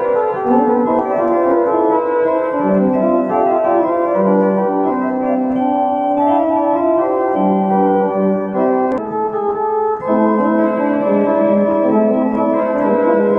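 Electronic keyboard played with both hands on an organ-like voice: held chords under a moving melody, each note sustained at an even level rather than dying away. There is a brief break about nine seconds in before a new chord comes in.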